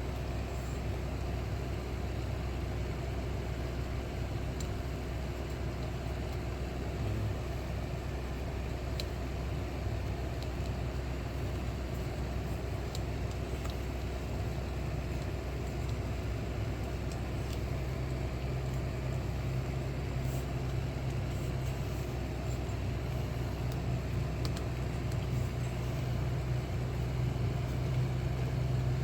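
A steady low hum of background machinery, with a deeper drone that grows stronger about two-thirds of the way in and a few faint ticks scattered through it.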